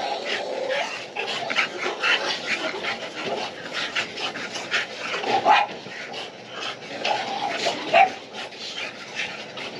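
Dogs barking, yipping and whimpering over and over, with louder cries about five and a half seconds in and again near eight seconds.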